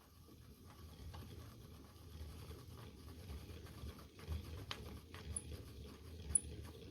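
1927 Frister & Rossmann sewing machine stitching: a faint low mechanical rumble with soft, irregular clicks and ticks from its moving parts, with one sharper click a little past halfway.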